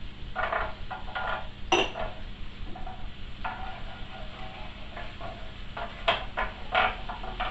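A utensil clinking and scraping against a frying pan, with several sharp knocks, over a low steady hum.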